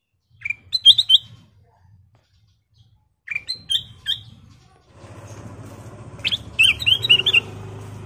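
Ruby-throated bulbul (kutilang emas) singing three short phrases of quick, rising whistled notes, each under a second long and about three seconds apart. A steady low hum joins about halfway through.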